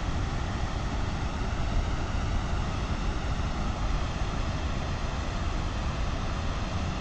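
Water rushing steadily over a low weir, an even noise heaviest in the low rumble.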